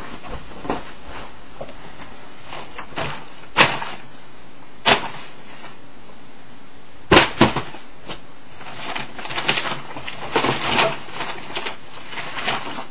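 Rummaging through a heap of papers and objects: a few sharp clicks and knocks spaced a second or more apart, then a stretch of paper rustling and things being shifted about in the last few seconds.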